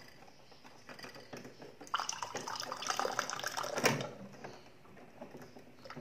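Hot water being poured into a glass, louder from about two seconds in, with a sharp clink near the end of the pour.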